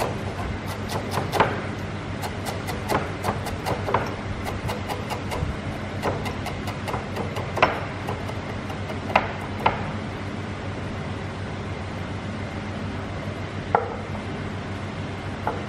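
Kitchen knife finely chopping culantro leaves on a wooden cutting board: a quick run of knife strokes on the wood in the first few seconds, then a few separate, sharper knocks. A steady low hum runs underneath.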